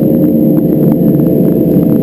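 The twin Pratt & Whitney PT6A turboprop engines of a Beechcraft King Air 300 running at low ground power, heard inside the cockpit as a loud, steady drone with a faint steady tone above it.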